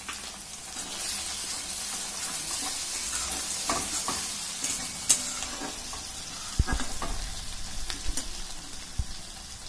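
Chopped onions and spices sizzling in hot mustard oil in a metal pan while a metal spatula stirs and scrapes through them. A few sharp clicks of the spatula against the pan, the loudest about five and six and a half seconds in.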